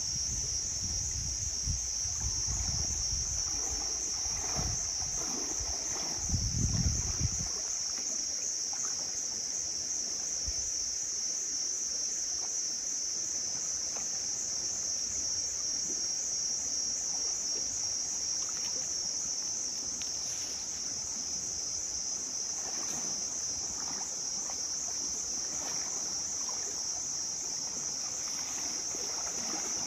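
Insects in the forest shrilling in a steady high-pitched drone that never lets up. Low rumbling bursts come under it in the first several seconds, loudest about six to seven seconds in.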